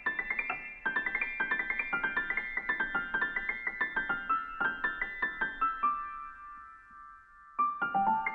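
Piano music: a quick run of notes that steps gradually lower in pitch, then a held note dying away before a few more notes come in near the end.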